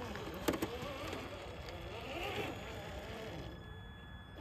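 Traxxas TRX-4 RC crawler's electric motor and geared drivetrain whining, the pitch rising and falling with the throttle as the truck climbs over rocks, with a sharp knock about half a second in.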